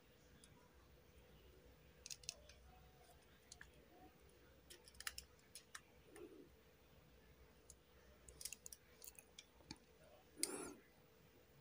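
Faint, scattered clicks and small metallic taps of a screwdriver and machine screws being fitted and tightened on a small amplifier board, with a brief louder scrape about ten and a half seconds in.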